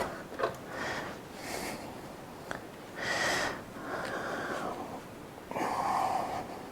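A mains power cable being pushed and slid into the plastic cable holder on the back of a coffee machine: several short rubbing and scraping noises, about five in all, with short gaps between them.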